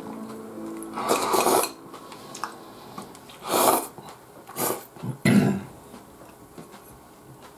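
Chicken soup slurped from a bowl held to the mouth: four loud, noisy slurps, the first about a second in and the longest.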